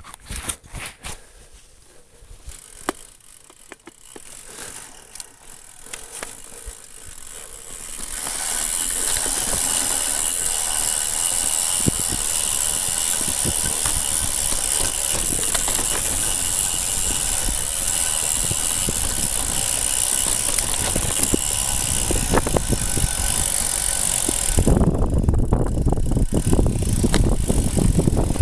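Mountain bike rolling downhill, heard from a handlebar-mounted camera. For the first several seconds there are scattered knocks and rustles of the camera being handled. Then comes a steady high hiss with light rattling as the bike runs down a grassy trail. About 25 seconds in it turns to a heavy low rumble and rattle as the tyres roll onto loose rocky scree.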